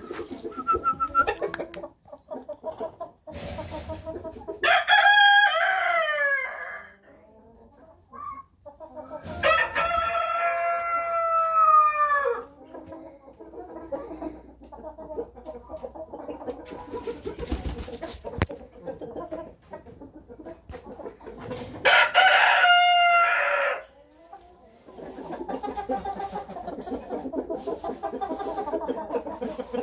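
Plymouth Rock roosters crowing three times, about five seconds in, again at ten seconds and at twenty-two seconds, with hens clucking between the crows.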